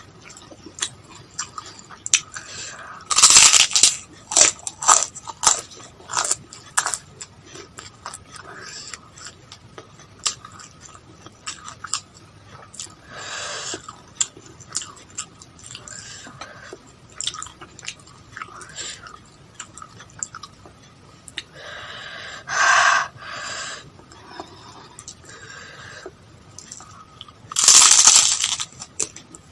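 Close-miked mouth sounds of eating: steady chewing with sharp crunching and crackling bites, including two louder stretches of crunching, one about three seconds in and one near the end.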